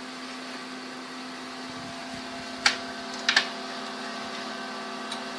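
HP Color LaserJet CP2025n laser printer running with a steady motor hum and no annoying noise from its original HP black toner cartridge. A sharp click comes about two and a half seconds in, then a quick double click.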